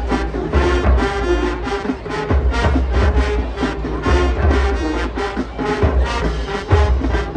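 Marching band playing, with brass carrying the tune over heavy low drum hits about once a second.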